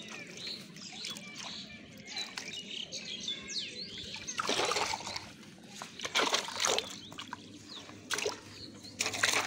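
Carp splashing in a metal bucket of water, in a few short, sharp bursts in the second half. Small birds chirp in the first half.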